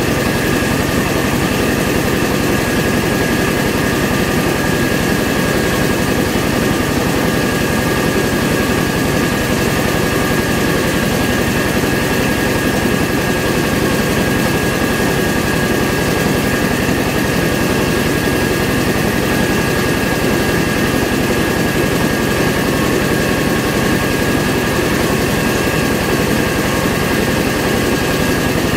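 Mobile rice mill's engine and husking and polishing machinery running steadily under load, a loud even drone with a constant high whine over it.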